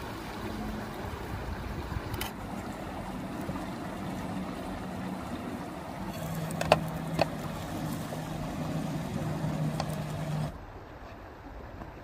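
A low, steady engine hum over the rush of a flowing river, dropping slightly in pitch about six seconds in. A few light clicks of a metal spatula on an iron tawa come through it. The hum and most of the noise cut off abruptly near the end.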